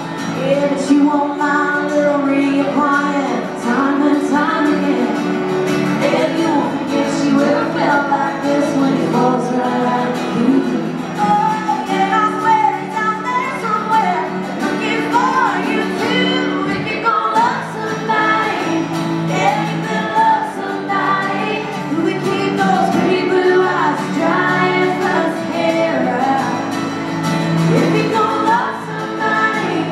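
Live acoustic country performance: a woman singing lead over two strummed acoustic guitars and a mandolin, playing steadily throughout.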